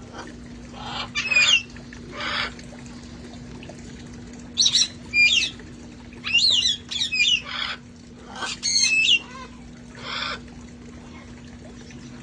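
Parrots squawking: short, shrill calls with quick up-and-down pitch swoops, coming in clusters of two or three with pauses between. A steady low hum runs underneath.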